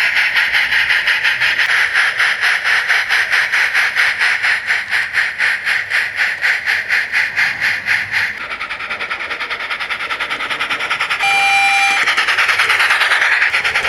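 Steam sound card in a Gauge 1 fine-scale brass 14xx model locomotive, playing steam exhaust chuffs through its small loudspeaker as the locomotive moves away. The chuffs come as a steady, even beat, then turn quieter and faster about eight seconds in. A brief whistle-like tone sounds near the end.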